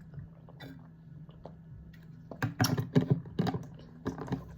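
An Owala water bottle being handled: a quiet first half over a low steady hum, then from about halfway a quick run of sharp clicks and taps, like a plastic lid and bottle being knocked and clicked.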